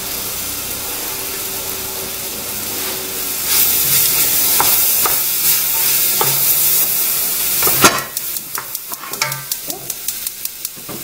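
Chopped vegetables sizzling in hot dark roux in a stainless steel pot while a wooden spoon stirs them; the sizzle grows louder about three and a half seconds in. From about eight seconds, a rapid, regular run of sharp clicks: a gas burner's igniter sparking.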